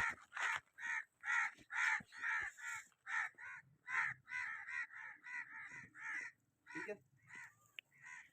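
Crows cawing: a rapid, harsh series of caws, about two or three a second, thinning out and fading near the end.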